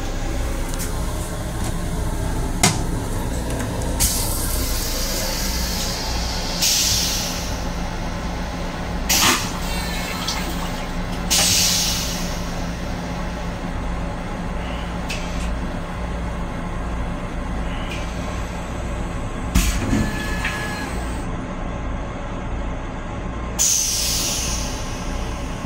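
Steady low rumble of a Long Island Rail Road M7 electric railcar, heard from inside its small restroom, broken by several short hisses of air and a few sharp knocks and rattles.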